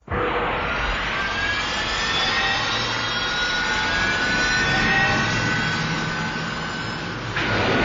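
Mechagodzilla sound effect: a jet-like roar that starts suddenly and holds steady, with thin whines sliding slowly upward through it. A harsher, hissier layer joins near the end.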